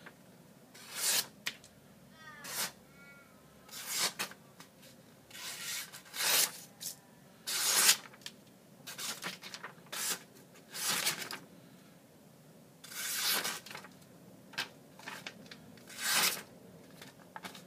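Sharp stainless folding-knife blade slicing through a sheet of paper, about a dozen short rasping cuts, one every second or so.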